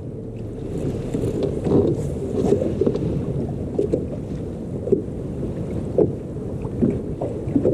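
Water slapping against a fishing boat's hull in irregular knocks about once a second, over a steady low rumble of wind on the microphone.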